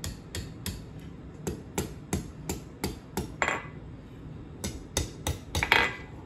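Hand hammer striking a hot steel bar on an anvil in quick, even blows, about three a second, curling a hook into the bar's end. The blows pause briefly a little past the middle, and two of them ring out louder, the loudest near the end.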